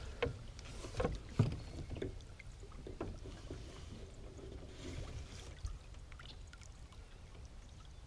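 Water sloshing and splashing beside a small jon boat as a musky is held in the water and released by hand, with a few knocks in the first two seconds, the loudest about a second and a half in.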